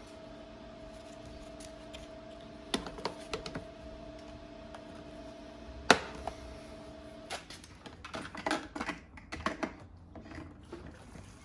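Light clicks and taps of small tools and mower parts being handled, with one sharper knock about six seconds in and a busier run of clicks after that. A steady low hum runs underneath and stops about seven seconds in.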